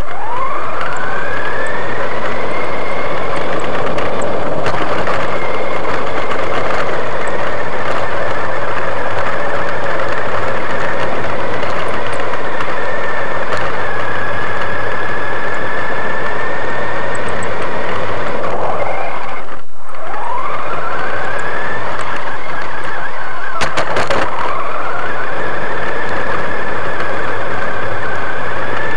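RC monster truck's motor and gears whining, heard from on board the truck. The whine climbs in pitch as the truck accelerates, then holds steady at speed. About twenty seconds in it drops out briefly, then climbs twice more, with a few sharp clicks near the second climb.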